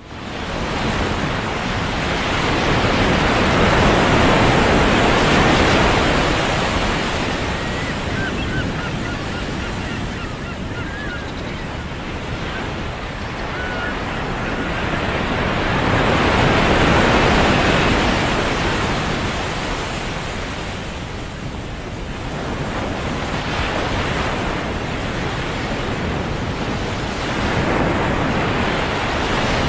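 Ocean surf breaking and washing up a beach, swelling about every 11 to 12 seconds, with wind buffeting the microphone. A few faint, short, high bird calls come between about 8 and 13 seconds in.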